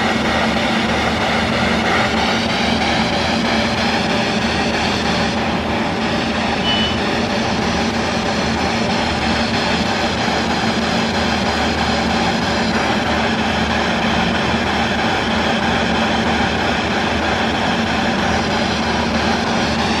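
Handheld spirit box, a radio that sweeps rapidly through stations, putting out a steady loud hiss of radio static.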